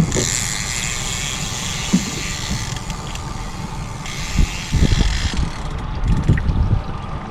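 Fishing reel being cranked in two spells, a whirring that stops about three seconds in and starts again a second later, over the low running of the boat's motor, as a small fish is reeled in.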